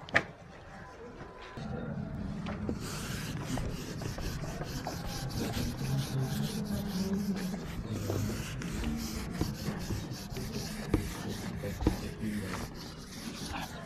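Handheld whiteboard eraser scrubbing marker writing off a whiteboard in rapid back-and-forth strokes. A sharp click comes just at the start, before the wiping begins.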